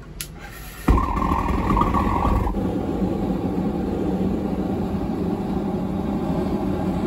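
Single-burner propane gas forge lighting: a brief click, then the burner catches suddenly about a second in and runs on with a steady roar. It lights on the first try, with no adjustment needed.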